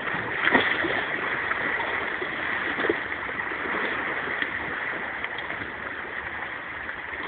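Small sea waves washing and lapping against shore rocks in a steady wash.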